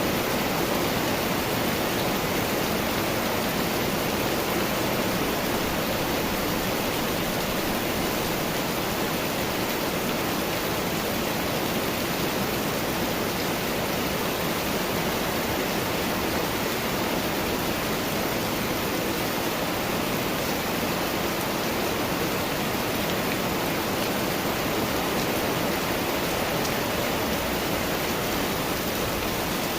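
Rain falling steadily in a summer storm, an even hiss that does not change.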